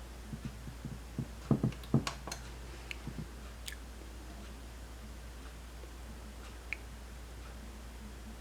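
Hand-handling noise from adjusting test equipment: a short cluster of clicks and light knocks between about one and three and a half seconds in, then two lone clicks later, over a steady low hum.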